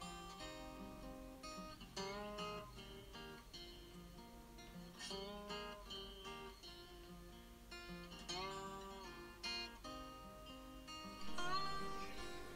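Background music: an acoustic guitar playing a plucked melody, some notes sliding upward.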